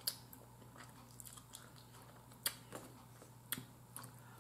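Faint close-up eating sounds: a person chewing chicken, with a few sharp mouth clicks. The clicks come right at the start and again about two and a half and three and a half seconds in, over a faint low hum.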